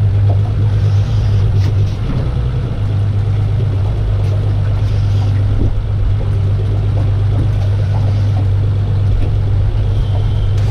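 Outboard motor running steadily, a constant low hum.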